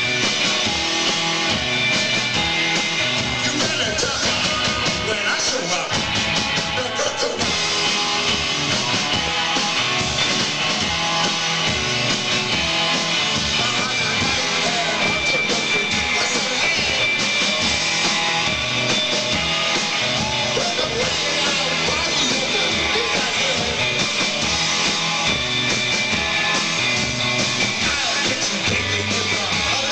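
A rock band playing a song live at a steady, loud level, with electric guitar.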